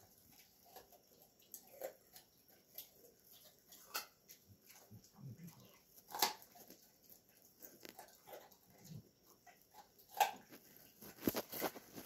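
Dog chewing and crunching small pieces of carrot off the floor: irregular crunches and clicks, a few louder than the rest.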